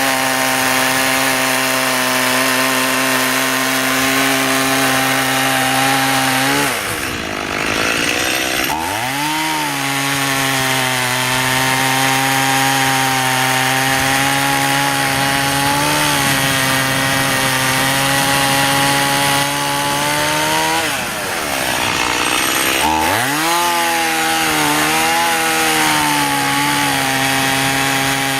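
Stihl MS 180 (018) two-stroke chainsaw running at high revs, cutting into a large hardwood trunk. Twice the engine speed drops sharply and climbs back up.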